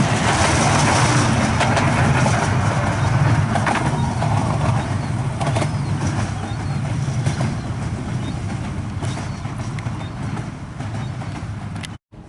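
Miniature railway train running on its track, a steady rumble with a low hum and occasional clicks from the wheels, fading steadily as it moves away; the sound cuts off abruptly near the end.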